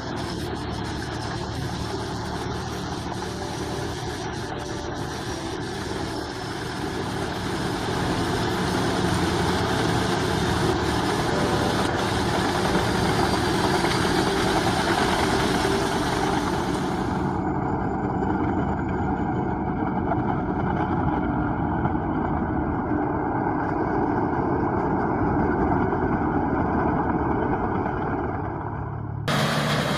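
Heavy forestry machinery running steadily with engine noise; the sound changes abruptly about seventeen seconds in, becoming duller, and again near the end.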